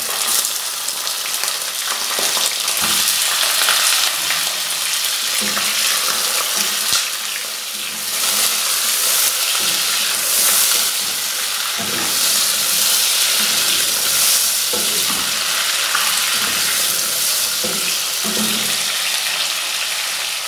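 Raw chicken pieces sizzling hard in hot oil with fried onions in a saucepan, the hiss starting suddenly as the chicken goes in, with a wooden spatula stirring and knocking in the pan.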